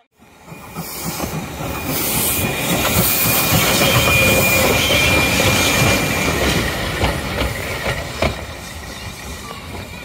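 Heritage train running on the rails: wheel and rail noise swells to its loudest in the middle and eases off toward the end, with a thin, high wheel squeal in the middle and a few sharp clicks.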